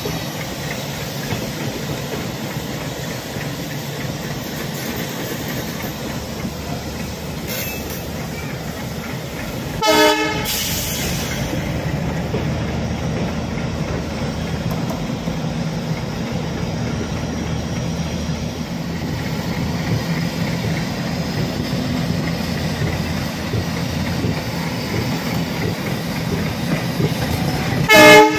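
Two trains running side by side: a steady rumble of wheels on rail and the engine of a long-hood diesel locomotive close by. A train horn gives a short blast about ten seconds in and another, louder one near the end.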